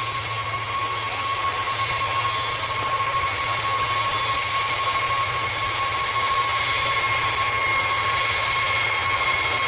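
Boeing 747 jet engines running on the ground at low power with a steady high whine over a low rumble, growing slightly louder as the airliner moves past.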